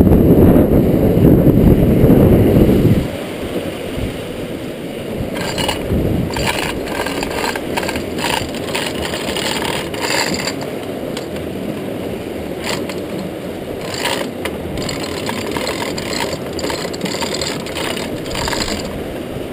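Manual chain hoist being hauled by hand: the steel chain rattles and clicks through the hoist in a run of irregular clicks and scrapes, raising the rotary screw trap's cone. For about the first three seconds a loud rumble of wind and rushing river water on the microphone covers it.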